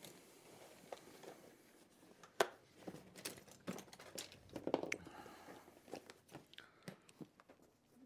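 Scattered light clicks, knocks and rustling, as of objects being handled; the sharpest knock comes about two and a half seconds in, with a small cluster of knocks near five seconds.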